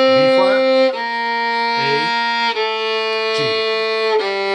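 Violin playing slow, separate bowed notes that step downward: C, B flat, A, then the low open G string from about four seconds in. These are the closing notes of a G melodic minor scale on its way down, where it follows the natural minor.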